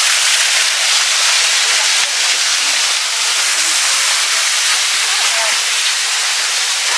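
Steady rushing hiss of a small waterfall's falling water, close by.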